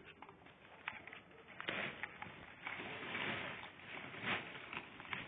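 A dog chewing walnuts, cracking the shells with irregular crunches and sharp clicks, busiest in the second half.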